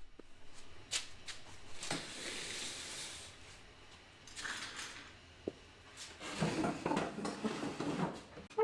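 Objects being handled on a workbench: a few knocks and clicks, with stretches of scraping and rustling as things are moved.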